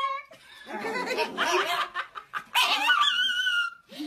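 A person laughing, then a chihuahua howling one drawn-out, high, wavering note about two and a half seconds in.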